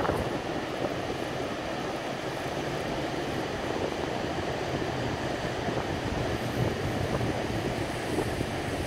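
Steady rumble of ocean surf breaking on a sandy beach, an even wash of noise with no distinct crashes.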